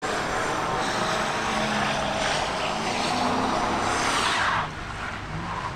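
Car spinning its tyres: a long tyre screech over an engine revving up and down. The screech stops about four and a half seconds in, leaving the engine quieter.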